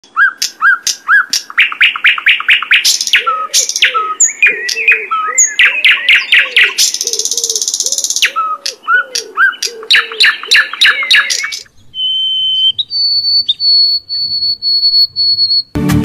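A songbird singing a loud, fast, varied song of rapidly repeated notes and trills, with a harsh buzzing phrase about seven seconds in. About twelve seconds in it gives way to a white-throated sparrow's song of long pure whistles, a lower note followed by a higher one held with a slight waver.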